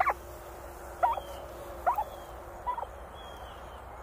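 Turkey hen chirping: a series of short chirps that rise and fall in pitch, about one a second.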